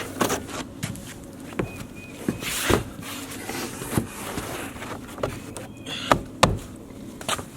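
Irregular knocks, thumps and a short scrape as roofers handle and set rigid insulation boards on a roof deck and move about on it. The loudest are two heavy thumps close together about six seconds in.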